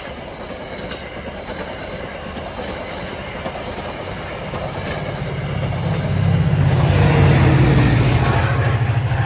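VRE commuter train passing at speed, its bilevel gallery cars clattering over the rails, then the diesel locomotive at the rear going by in the second half, its deep engine drone becoming the loudest sound.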